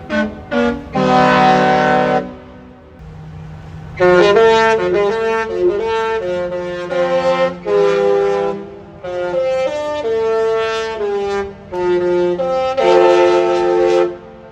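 Disney Treasure cruise ship's musical horn playing a tune as a run of long, brassy held notes over a low sustained tone. The horn goes quieter for a couple of seconds about two seconds in, then plays on.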